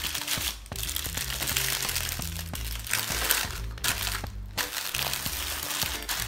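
Wax paper crinkling and rustling in repeated bursts as a log of cookie dough is rolled up in it against a countertop, over steady background music.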